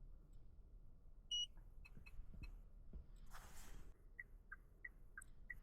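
Car electronics during key testing: a single short high beep, a few light clicks, a brief rustle, then soft regular ticking about three times a second.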